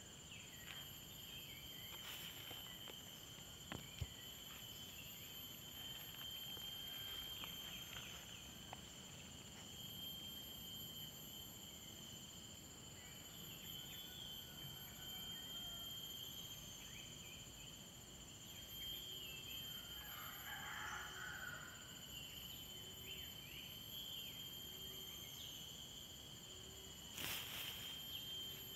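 Faint, steady high-pitched insect chorus with several unbroken trilling tones, with a few soft clicks and rustles in the grass.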